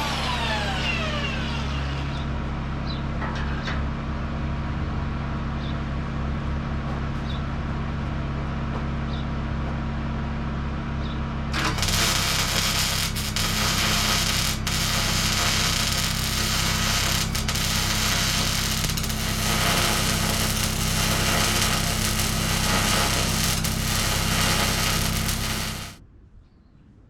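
A power tool spinning down with a falling whine, then a steady machine hum. About twelve seconds in, the harsh, crackling hiss of arc welding on steel plate starts and runs on, with scattered sharp pops, until it cuts off near the end.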